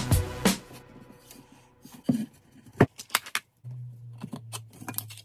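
Background music with a drum beat cuts off about half a second in, then light clicks, taps and scratches of a pencil marking timber and a marking square being set against it, with a low steady hum joining near the end.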